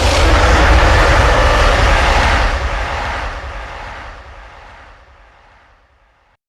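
King Kong roar sound effect: one long, deep, noisy roar that starts suddenly, stays loud for about two and a half seconds, then fades away over the next few seconds.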